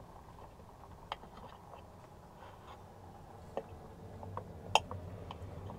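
A knife cutting into a carrot cake, with a few light, separate clicks and taps as the blade works through and touches the plate, the sharpest about three-quarters of the way in. A faint low hum comes up from about four seconds in.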